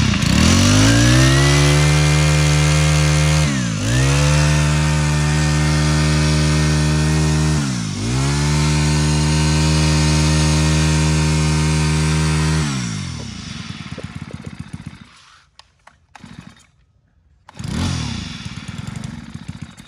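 Makita 27cc four-stroke brush cutter engine held at high revs, the throttle eased off and reopened twice, then released so the revs fall away about two-thirds of the way through.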